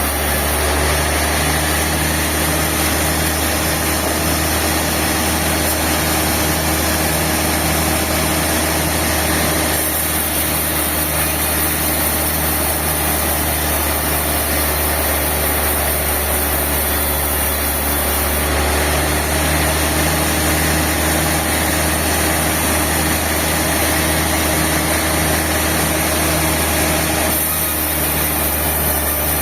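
Sawmill machinery running steadily, a continuous engine-like hum with a low pulsing beat.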